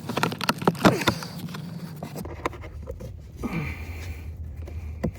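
Clicks, light knocks and scraping of hands and a Torx driver working loose the plastic cabin filter box cover, thickest in the first two seconds and then sparse.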